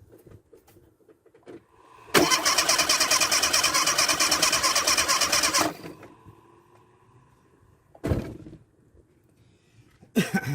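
Nissan Sunny engine cranked on its starter motor with ignition and fuel cut, so it turns over without firing: a fast, even chugging for about three and a half seconds that stops abruptly, during a compression test of the first cylinder. Two short knocks follow.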